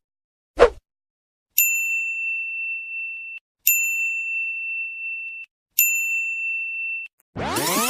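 Three identical high-pitched ding sound effects, each held steady for about two seconds, with a short pop just before them. Near the end a loud electronic whoosh with many sweeping pitches starts.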